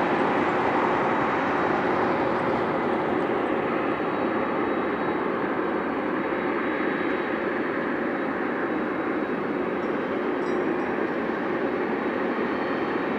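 Jet airliner engines at takeoff thrust: a steady, loud rushing noise that eases slightly over the first few seconds and then holds.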